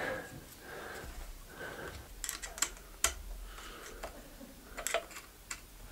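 Scattered light clicks and ticks of hands handling a wiring cable and small plastic parts, with a quick cluster about two seconds in and another near the end.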